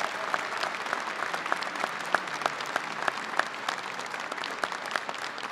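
Audience applauding: many hands clapping in a dense, even patter that eases off slightly near the end.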